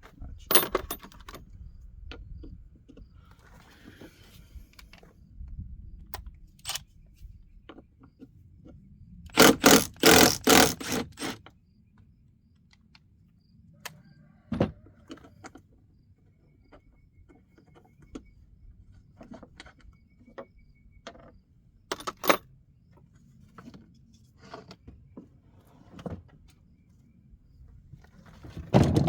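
Metal hand tools clinking, scraping and knocking as a wheel is taken off a Craftsman wheeled string trimmer, with a loud run of rapid clicks lasting about two seconds, starting about nine and a half seconds in.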